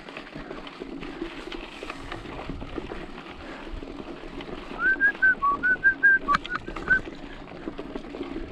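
Someone whistling a quick run of about ten short notes, starting about five seconds in, over a steady background hiss.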